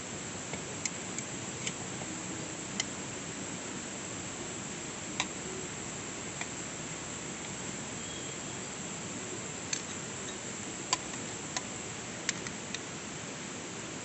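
Metal spoon clinking against a stainless steel cooking pot and a ceramic bowl as soup is spooned out: about a dozen light, ringing clinks at uneven intervals, over a steady hiss.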